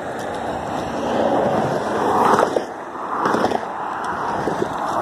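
Cars passing at highway speed close by: tyre and engine noise that swells as each vehicle goes past, loudest about two and three seconds in.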